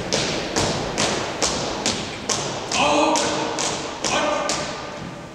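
Marching footsteps of a four-person color guard, dress shoes striking a hard floor in unison at about two steps a second, each step echoing in a large hall.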